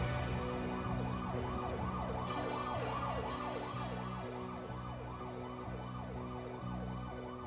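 Electronic music: held bass notes under a wailing siren sound that sweeps up and down about three times a second.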